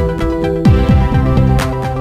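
Music with sustained chords and deep drum hits that drop sharply in pitch, with a sharp higher hit just after the middle.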